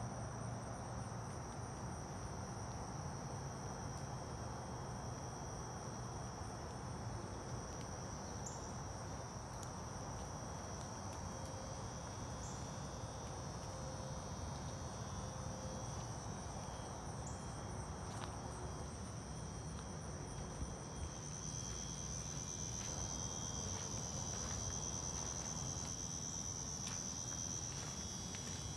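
A chorus of insects trilling: a steady high-pitched drone, getting louder about two-thirds of the way through, with a second, faster pulsing trill above it in the earlier part.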